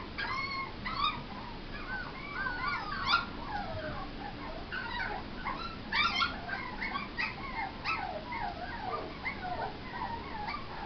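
Puppy whining and whimpering in a long string of short, high cries that slide up and down in pitch, with louder yips near the start and about six seconds in.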